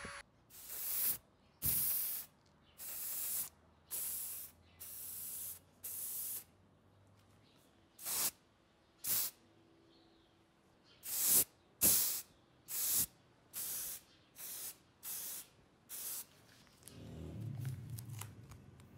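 Aerosol spray paint hissing out in about fifteen short bursts, each under a second, as red paint goes onto a small diecast model car body.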